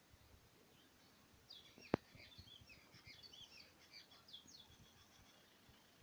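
Faint birds chirping in a quick run of short high notes, with one sharp click about two seconds in.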